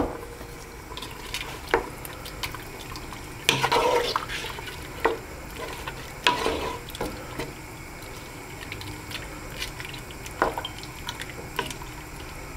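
Wooden spoon stirring chunks of meat and onion through beef stock in a large metal stockpot: wet sloshing with occasional knocks and scrapes of the spoon against the pot.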